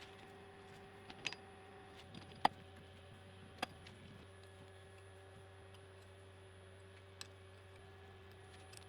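A few faint, scattered clicks and knocks, the loudest about two and a half seconds in, over a steady electrical hum. They are typical of a metal workpiece and clamps being handled while the part is flipped and set up again on the mill.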